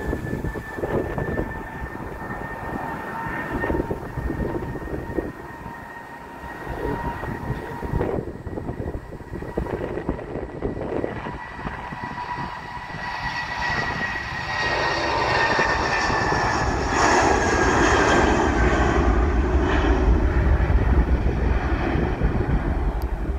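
Jet airliner's engines at takeoff thrust during its departure roll: a steady high whine with a lower tone beneath it, while a broad jet rumble builds from about halfway through and is loudest near the end. Wind buffets the microphone throughout.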